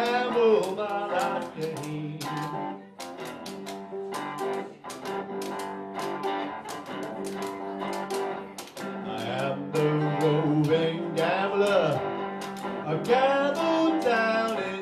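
Bluesy electric guitar playing with note bends over the steady scraping rhythm of a washboard, and a male voice singing briefly near the end.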